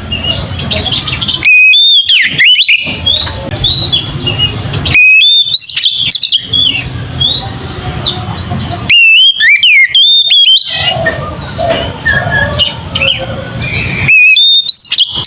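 Oriental magpie-robin (kacer) singing loud, open whistled phrases with quick pitch glides, in four bursts a few seconds apart. Between the bursts runs a busy background of softer chirps and low noise.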